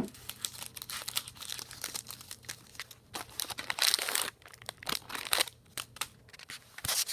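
Bananco candy bar's plastic-and-foil wrapper being opened, crinkling and tearing in irregular bursts of crackles, loudest about four seconds in.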